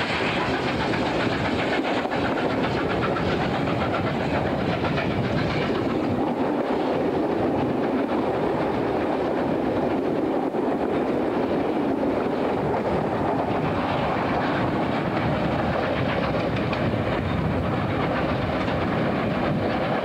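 Steam-hauled train heard from a carriage window: the steady running noise of wheels on rail, with the NSW 3801 steam locomotive working ahead as the train climbs a grade.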